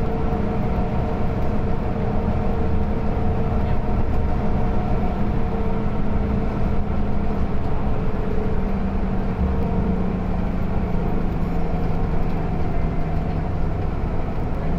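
Mercedes-Benz OC500LE bus engine running steadily, heard from inside the rear of the cabin. Its hum drops slightly in pitch about eight or nine seconds in, then holds.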